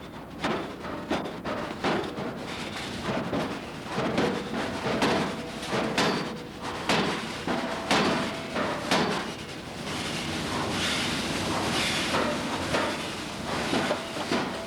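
Blacksmith's hammer striking steel on an anvil, about two blows a second, some blows leaving a short metallic ring. In the last few seconds the blows thin out under a steadier rushing noise.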